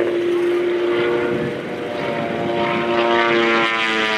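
Propeller engine of a clipped-wing Taylorcraft aerobatic plane flying its display: a steady drone whose pitch slowly falls, with a lower tone joining about two seconds in.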